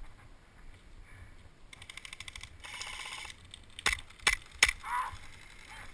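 Airsoft gun firing: a rapid rattle of clicks lasting about a second and a half, then three sharp single cracks a little under half a second apart.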